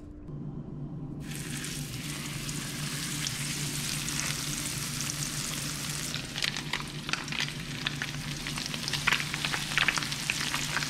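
Grouper fillets, crusted in blackening seasoning, sizzling in hot oil in a nonstick frying pan. The sizzle starts suddenly about a second in as fish goes into the oil, and turns louder and more crackly, with many sharp pops, from about six seconds in as a second fillet is added.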